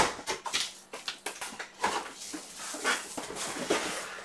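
Large cardboard shipping box being opened: a sharp snap as the packing tape gives way at the start, then irregular scraping and rustling of cardboard as the box is worked open and lifted.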